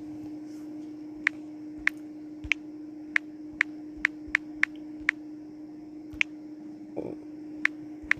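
Irregular clicks of a smartphone's on-screen keyboard as text is typed, about a dozen taps over a steady low hum.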